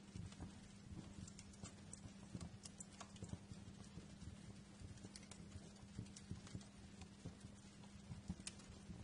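Wood fire crackling: irregular small pops and snaps over a low steady hum.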